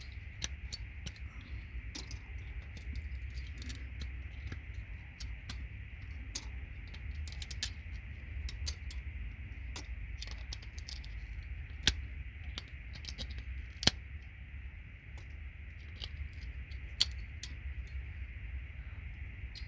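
Scattered small clicks and ticks of metal pins and plastic worked by hand, as gold-plated contact pins are pulled from RJ45 jacks on a network patch panel, with a few sharper snaps. A steady low hum runs underneath.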